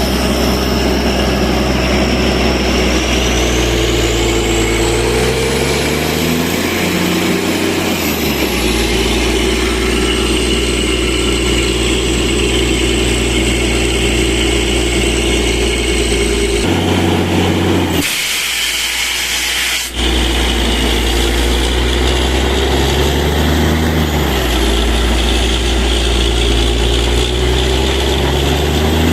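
Borewell drilling rig running: a steady, loud engine with a high whine, its pitch dipping and rising a few times. About two-thirds of the way in, the low rumble drops out for about two seconds and a hiss takes over.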